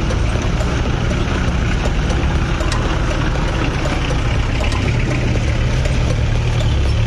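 A 4x4 off-road vehicle's engine running steadily at low revs, with scattered light clicks and knocks over it.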